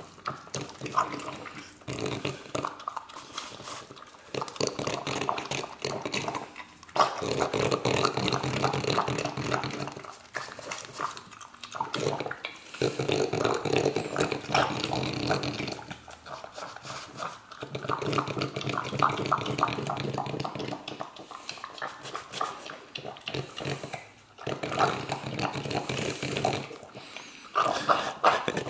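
French bulldog licking and lapping at a pup cup of whipped cream: rapid wet licking and smacking in spells of a few seconds, with short pauses between.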